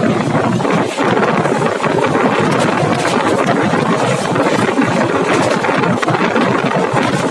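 Passenger train running along the track, a loud, steady rumble and rattle of the coaches heard from on board.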